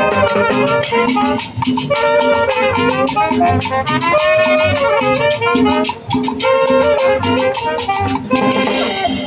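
Live street brass band playing a Latin dance tune: trumpets carrying the melody over drums keeping a steady, quick beat.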